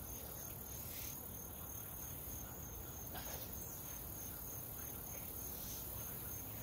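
Insects trilling steadily in a high, thin pulsing tone, over a faint even background hiss.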